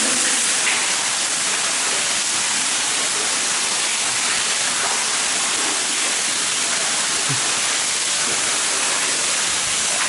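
Underground waterfall in a limestone cave, water falling steadily into a pool with an even rushing hiss.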